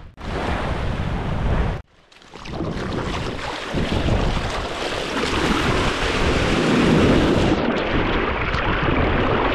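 Surf washing on the beach, with wind buffeting the microphone. The sound cuts out briefly right at the start and again about two seconds in.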